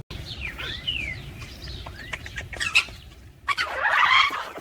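Parrot calls: a few whistled chirps that slide up and down, two sharp squawks, then a harsh, noisy screech lasting nearly a second toward the end.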